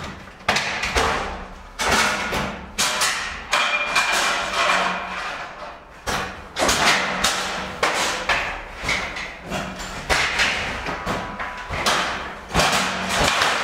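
Ski kit clattering on a metal grated staircase: heavy, irregular thuds and clanks about once or twice a second, each ringing on briefly.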